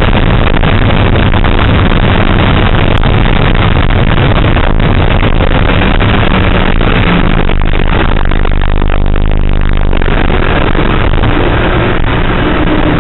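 Car engine running hard on a race-track lap, heard loud from inside the cabin over road and tyre noise, its note shifting pitch several times.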